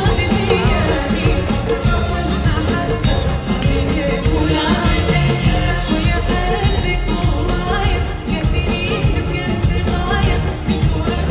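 A woman sings Arabic pop live, amplified through a concert PA, backed by an orchestra with violins.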